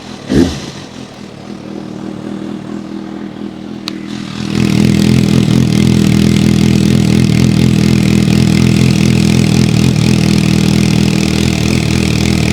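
Suzuki GSR 750 inline-four running through a newly fitted aftermarket slip-on can with its baffle insert in: a steady idle with a short blip of throttle about half a second in, then from about four and a half seconds a much louder steady exhaust note. The new system still leaks somewhere at a joint, by the owner's account.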